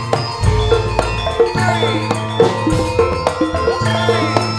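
Javanese gamelan ensemble playing campursari music through a PA sound system: bronze metallophones struck in a steady ringing melody over drum strokes and deep bass notes.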